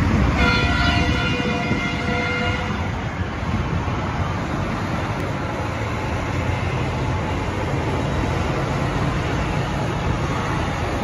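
Steady low rumble of a column of military armoured vehicles and army trucks driving along a wide city avenue. Near the start, a horn-like tone sounds for about two seconds over the rumble.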